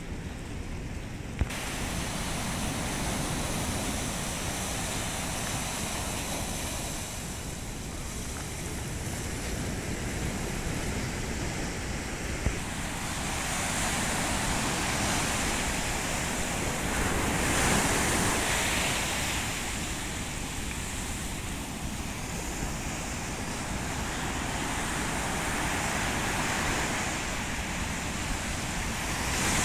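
Sea surf breaking on a sandy beach, the wash swelling louder every few seconds, with wind rumbling on the microphone. Two brief knocks, one near the start and one about halfway.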